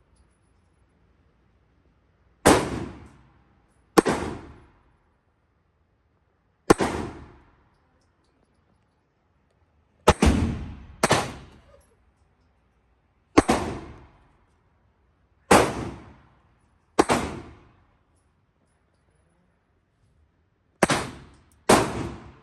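Gunshots at a shooting range: ten single shots at uneven intervals of about one to four seconds, two of them close pairs, each with a short echoing tail.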